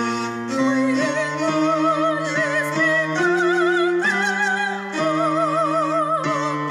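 Slow sacred classical music: a high, sustained melody with wide vibrato over held accompaniment chords that change about once a second.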